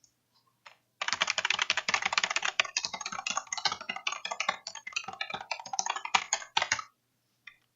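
Scorpion KM400 gaming keyboard being typed on, a fast run of keystroke clicks from about a second in until near the end, with a couple of single key clicks on either side.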